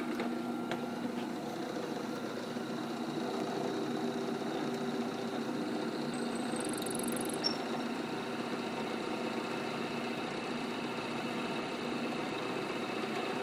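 Bench drill press motor running steadily, a constant hum with several steady tones, while its bit drills a hole into a dental stone cast.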